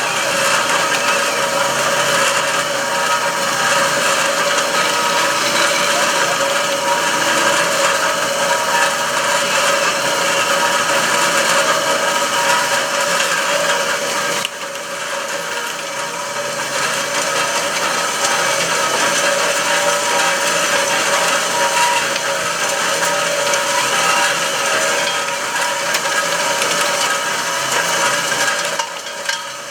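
Electric drive motors and gearboxes of radio-controlled model construction machines running continuously, with a steady mechanical whine over a dense grinding noise. The sound dips briefly about halfway through.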